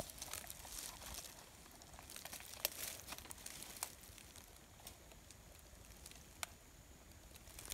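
Faint crackling and rustling of dry leaf litter and twigs, with a few sharp ticks scattered through.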